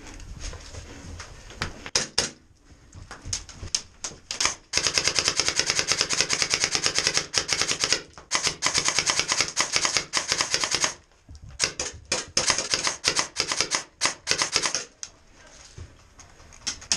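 Airsoft electric guns firing rapid full-auto bursts: a fast, even rattle of shots, scattered at first, then long unbroken strings from about five seconds in, stopping briefly twice and dying away near the end.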